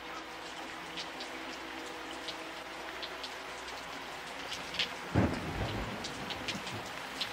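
Steady rain with scattered drips and patters, and a low rumble of thunder coming in about five seconds in, as a storm intro to the song.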